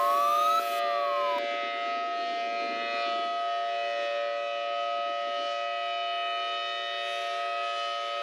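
Emergency warning siren sound. A wailing pitch rises, peaks and falls away within about the first second and a half, over several steady held tones that sound throughout.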